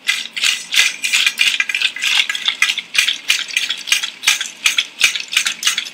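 Spatula stirring and scraping ganache around a stainless steel bowl that sits in an ice-water bath, the bowl being turned against the bowl beneath: rapid clinks and scrapes of metal, about three a second. The ganache is being cooled and tempered over ice.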